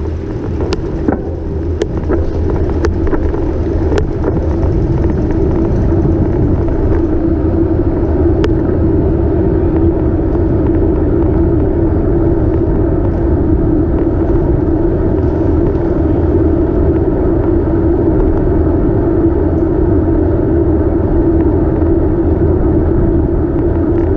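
Wind and road noise on a bike-mounted camera while cycling, a steady loud rumble. A few sharp rattling clicks come in the first few seconds.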